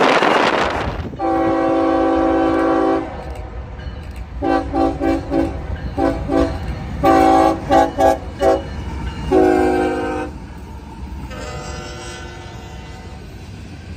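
Wind rushing over the microphone for about a second, then a CSX freight locomotive's multi-note air horn sounding one long blast, a run of short toots in quick clusters, and two more long blasts, the last one fainter. Under and after the horn runs the low rumble of the freight cars rolling by.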